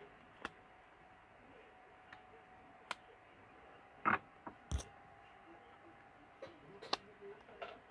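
A few light, scattered clicks and taps from tarot cards being handled and laid down, with long pauses between them.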